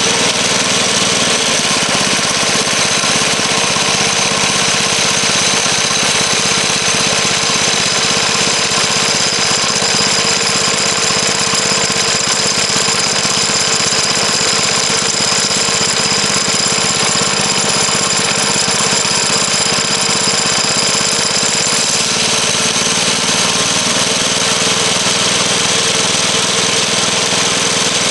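Small air-cooled single-cylinder go-kart engine running steadily, loud and continuous. Its note shifts about two seconds in and shifts back about 22 seconds in.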